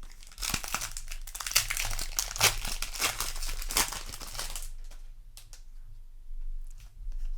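Crinkling and tearing of a Magic: The Gathering booster pack's foil wrapper being handled and ripped open, a dense crackle for about four seconds that then dies down to faint handling.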